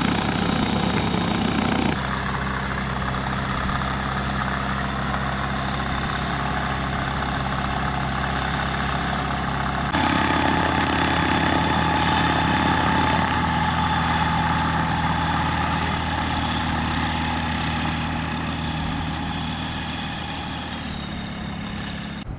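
Single-engine light aircraft's piston engine and propeller running steadily at low, taxiing power. The note jumps abruptly twice, about two seconds in and at about ten seconds, and the sound fades over the last few seconds as the plane moves away.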